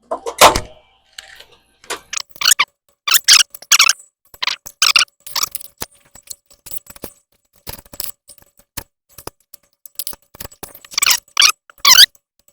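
Irregular sharp metallic clicks and short crackling bursts, each under half a second, as metal parts and tools are worked at the motor mount bracket.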